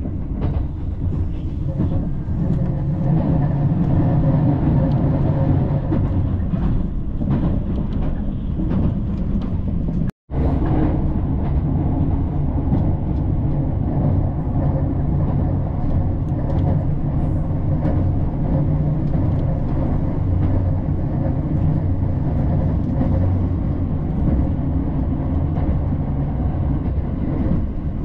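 Steady running noise inside a moving train car: a low, even rumble of the wheels on the track. The sound cuts out for an instant about ten seconds in.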